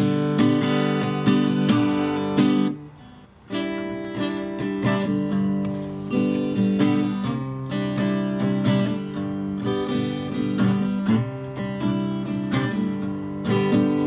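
Acoustic guitar strummed and picked, its chords ringing, with a short break about three seconds in.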